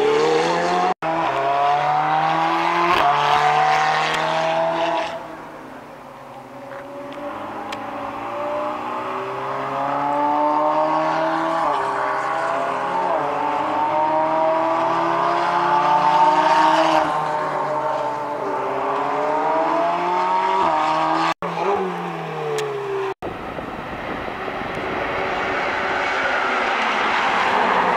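Ferrari Challenge race cars' V8 engines accelerating past, each rising repeatedly in pitch through the gears. Several cars overlap through the middle and end. The sound drops out briefly three times.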